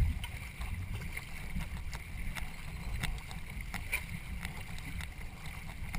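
Racing canoe under way, paddles and water against a steady low rumble, with faint ticks recurring about twice a second.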